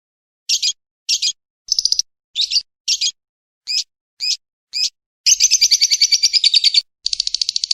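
Shrill bird calls from a masteran (songbird tutor) recording of lovebird and woodpecker voices: about nine short single chirps evenly spaced, then from about five seconds in fast rattling trills.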